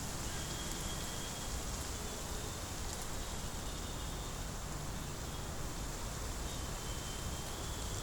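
Steady street ambience: a low rumble and hiss of distant traffic, with faint short high-pitched chirps now and then.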